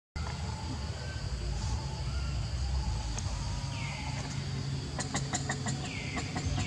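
Outdoor ambience with a steady low rumble and birds calling: a quick run of sharp chirps about five seconds in and two short falling calls.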